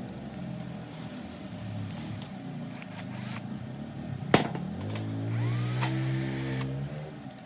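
Electric drill motor spinning up after a sharp click about four and a half seconds in: its whine rises in pitch, holds steady for about two seconds, then stops. Light clicks and taps come before it.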